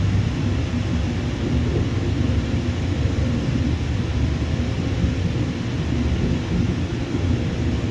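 Jet airliner engines giving a steady, loud low rumble with faint tones above it, without rising or falling.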